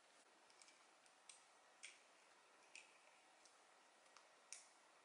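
Faint, irregular clicks of small plastic Playmobil figure parts and accessories being handled and snapped together, about half a dozen in all.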